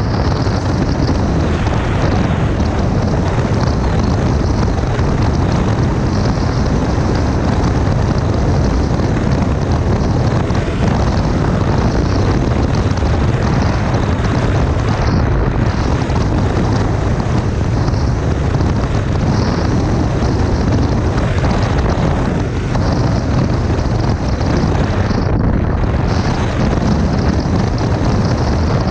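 Steady ride noise from a KTM 390 Adventure's single-cylinder engine at cruising speed, mixed with constant wind rush over the microphone.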